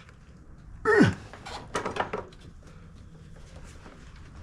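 A man's short grunt of effort, falling in pitch, about a second in, while he strains at an over-tightened oil filter, followed by a few light clicks and knocks of tools on metal.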